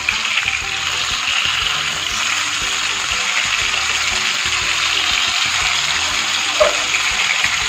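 Fish steaks shallow-frying in hot oil in a nonstick pan, a steady sizzle.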